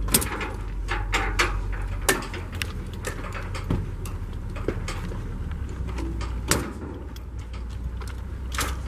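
Steady low outdoor rumble with scattered, irregular clicks and knocks; the sharpest come right at the start, about two seconds in and about six and a half seconds in.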